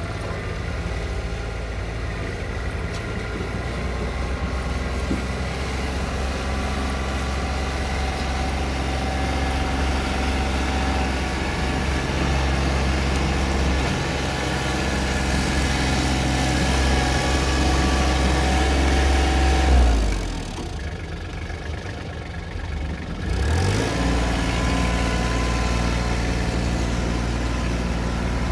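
Compact tractor engine running steadily. About twenty seconds in its note drops sharply and stays low for about three seconds, then climbs back up to speed.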